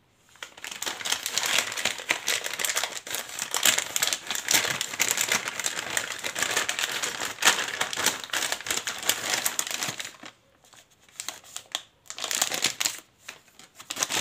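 Plastic packaging of a cam chain kit crinkling and rustling as it is opened and the parts are handled, with a pause of about two seconds near the end before the crinkling resumes.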